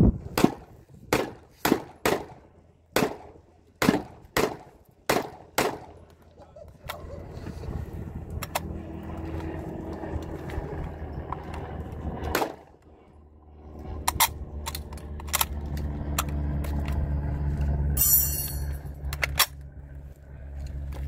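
Chinese Type 56 SKS rifle fired about ten times in quick succession over the first six seconds. Then come the metallic clicks of reloading from a stripper clip, with a loud clack about twelve seconds in and a few more clicks later, over a low rumble that builds near the end.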